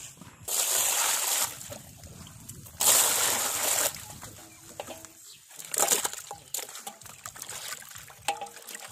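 Water pouring into a metal basin in two rushes about a second long, then softer splashing and sloshing as whole sea fish are put into the water and rubbed clean by hand.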